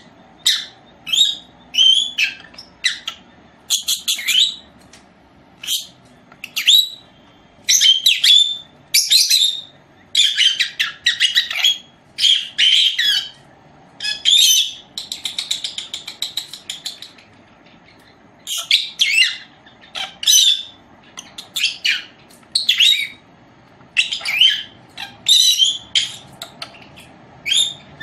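Caged lovebirds chirping: many short, shrill, high-pitched chirps in bursts, some running into quick chattering series, with short pauses between clusters.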